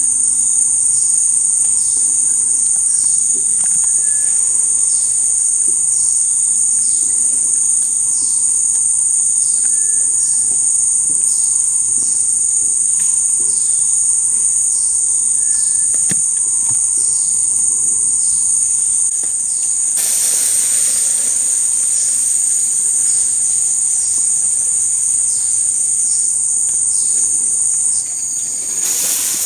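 Dense insect chorus: a steady, shrill, high-pitched drone, with faint short falling notes repeating beneath it. A brief rush of noise cuts across it about twenty seconds in and again near the end.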